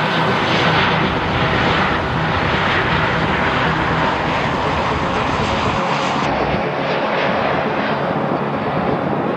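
Jet airliner engines running, a loud steady rush of noise with a faint whine in it; the sound shifts slightly about six seconds in.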